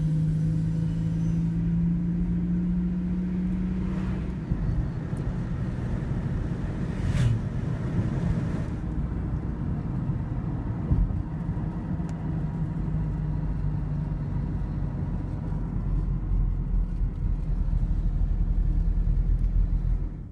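A car driving, with a steady engine drone and low road rumble; a single sharp click about seven seconds in.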